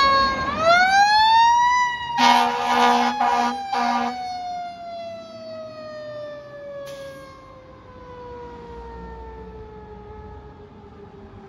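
Fire engine siren winding up to a high wail, then three short air-horn blasts. The siren then slowly winds down in pitch and fades as the engine drives away.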